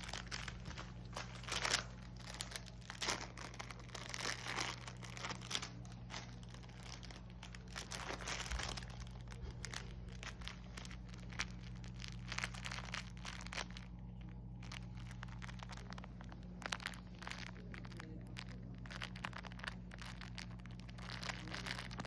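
Irregular crunching and crinkling of potato chips and their bag as a small dog eats chips, over a steady low hum.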